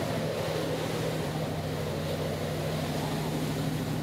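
Engine running steadily, a constant low drone with a rushing noise over it.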